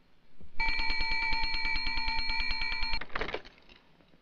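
Telephone bell ringing: one ring of about two and a half seconds, a fast, even rattle of the clapper on the bells, after a pause since the previous ring. It is followed near the end by a short clatter as the receiver is picked up.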